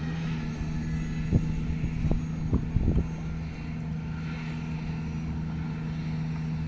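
An engine running steadily with a constant low hum, with a few sharp knocks between about one and three seconds in.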